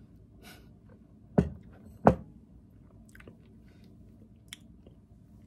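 A person chewing and tasting a spoonful of soft, creamy overnight oats, with small wet mouth clicks. Two short, sharp sounds stand out about a second and a half and two seconds in.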